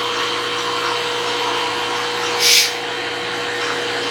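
CNC knee mill's axis drive jogging the table at a faster feed, a steady motor whine with a faint constant tone. A short hiss breaks in about two and a half seconds in.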